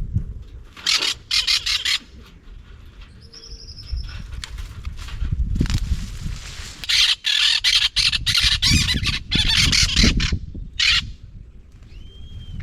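Parrots giving harsh, raspy squawks in repeated bursts: a short run about a second in and a longer, louder run from the middle on, with a brief whistled note a few seconds in.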